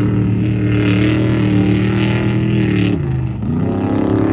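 Off-road race vehicle's engine held at high revs, then the revs drop about three seconds in and climb again.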